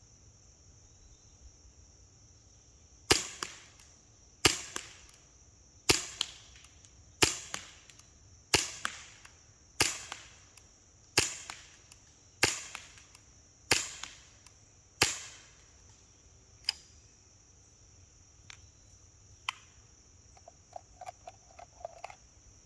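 Umarex HK USP CO2 BB pistol firing ten shots of Daisy Precision Max BBs, sharp pops about 1.3 seconds apart, each with a short tail. A few fainter clicks and a light rattle follow after the string.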